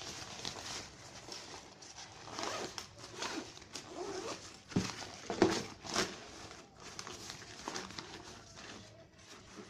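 Thin nylon backpack fabric rustling and crinkling as it is handled, with a zipper being pulled; the sharpest, loudest rasps come about five to six seconds in.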